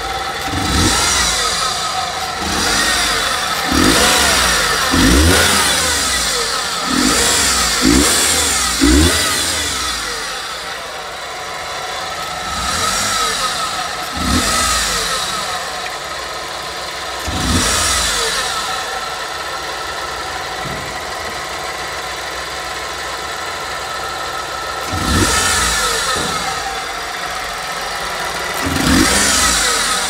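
Nissan Clipper's 660 cc three-cylinder engine idling and blipped by the throttle about ten times, each rev rising briefly and dropping back to idle, most of them in quick succession in the first third, with a long steady idle later on.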